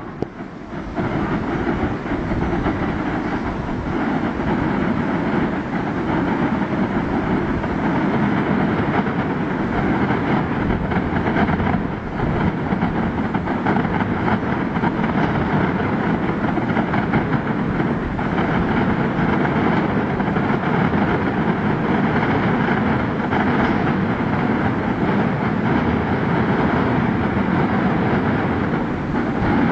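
Fireworks barrage: a dense, rapid run of bangs and crackling that merge into one continuous noise, rising in about a second and briefly dipping about midway.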